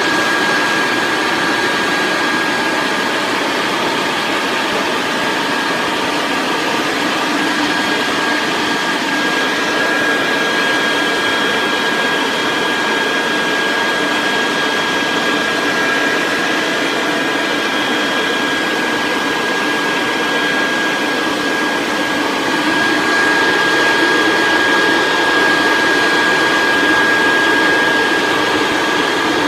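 Leaf blower running steadily, blowing air with a constant high whine over the rush of air, a little louder for a few seconds near the end.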